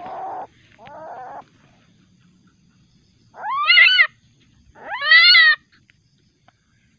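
Young Asian palm civet giving aggressive threat calls: two short rough growls, then two loud cat-like calls, each rising and then falling in pitch, about a second and a half apart.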